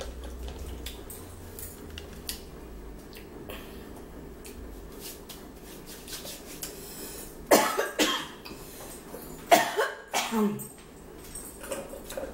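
A person coughing: a couple of sharp coughs about two-thirds of the way in, then another short bout a second and a half later ending in a throat-clearing sound, over faint small clicks of tableware and eating.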